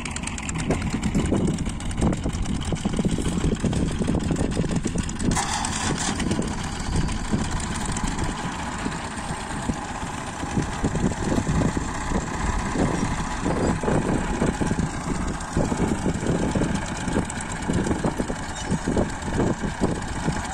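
Massey Ferguson 240 tractor's three-cylinder diesel engine running near idle, its level rising and falling. A short hiss comes about five seconds in.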